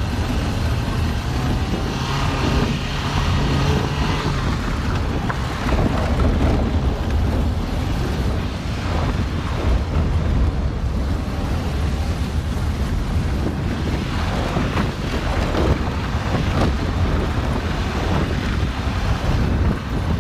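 Car driving over a rough gravel track: a steady low rumble of tyres and engine with brief knocks here and there, and wind buffeting the microphone.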